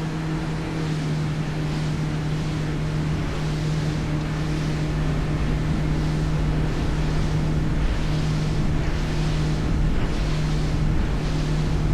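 Motorized watercraft running at a steady cruising speed, its engine holding a constant hum, with wind buffeting the microphone and water rushing past the hull.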